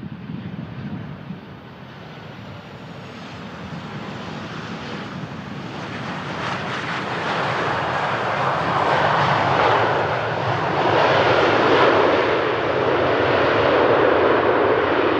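Delta Boeing 737 on its landing rollout just after touchdown: the jet engine noise swells steadily as the engines spool up into reverse thrust, loudest in the second half.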